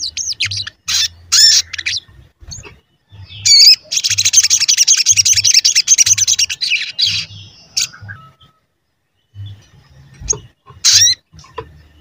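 Olive-backed sunbird (sogon) calling: sharp, high chirps, then a rapid trill lasting about three seconds, and a few more chirps near the end.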